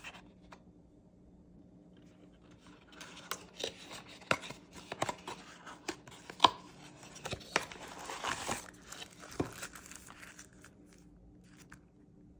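Packaging being unwrapped by hand: crinkling, tearing rustles and sharp clicks, starting about three seconds in and dying away near the ten-second mark.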